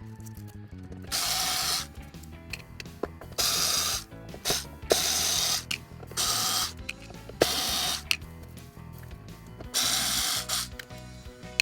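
Background music with steady low notes, cut by about seven short, loud bursts of whirring noise from a small handheld tool, each less than a second long.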